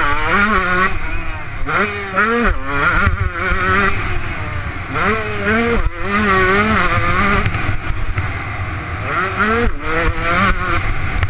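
Kawasaki KX 125 two-stroke motocross bike at full race pace, heard from the rider's helmet. The engine revs up sharply and drops back again and again, about six times, as it is shifted and throttled through corners and down a straight.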